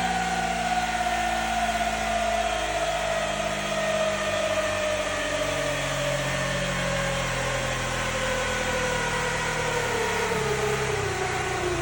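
Single-cylinder Honda Tornado XR 300 motorcycle engine at speed, its note falling steadily in pitch as the bike slows from a high-speed run. Steady wind rush runs under it.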